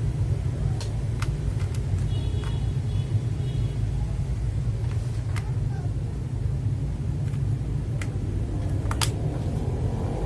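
Steady low rumble, with a few small sharp clicks scattered through it, a pair of them close together near the end.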